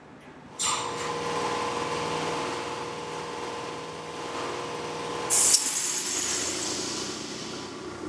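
Benchtop pneumatic coax compression crimping press running on shop air: a steady rush of air that starts suddenly about half a second in while the air cylinder strokes, then a short, loud burst of exhaust air about five seconds in.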